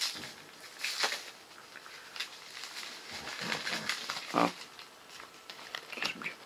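Rustling and knocking of groceries and their plastic packaging being handled: a handful of short, separate sounds a second or more apart.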